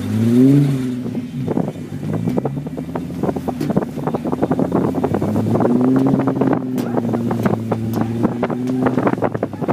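Towing vehicle's engine revving up in the first second, then running at a fairly steady pitch while pulling a rider on a toboggan over grass. Frequent knocks and rattles and wind buffeting on the microphone run over it.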